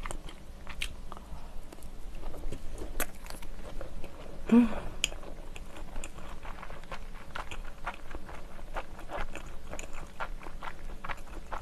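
Close-miked chewing of salmon nigiri sushi: irregular soft, wet mouth clicks and smacks, with a brief hum about four and a half seconds in.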